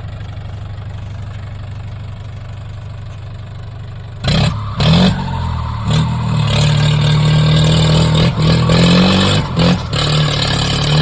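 Tractor engine sound, running at a steady low idle, then louder and working harder from about four seconds in, with brief dips as it changes load.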